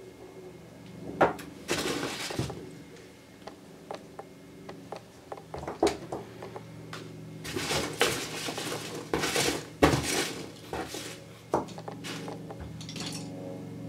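Hands rummaging through foam packing peanuts in a cardboard box: bursts of rustling and squeaking foam, with sharp clicks and clacks of small plastic paint pots knocking together as they are lifted out.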